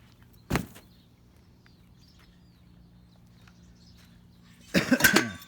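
Items being handled during scrap picking. There is one sharp knock about half a second in, a faint steady low hum, then a quick run of loud knocks and clatter near the end.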